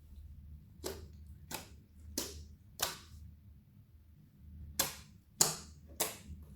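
Clear slime being pressed and played with, giving sharp popping snaps as air pockets burst: four evenly spaced pops, a pause of about two seconds, then four more.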